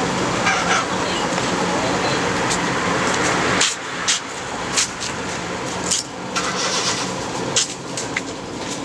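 Street noise from a passing road vehicle, swelling and then dropping off suddenly a little over three seconds in, followed by a quieter background with scattered sharp clicks and knocks.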